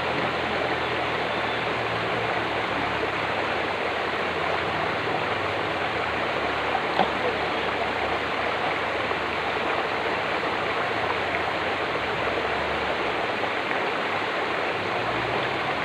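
Steady rush of a river's running water flowing over rocks.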